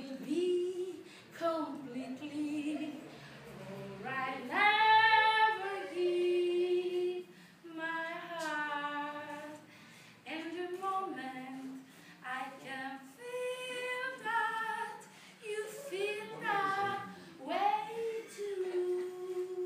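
A woman singing solo without accompaniment: long held notes with vibrato, in phrases separated by short pauses.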